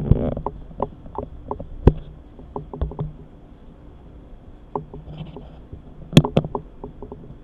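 Scattered light knocks and clicks, with sharper ones near the start, about two seconds in and about six seconds in, over a faint low hum that comes and goes.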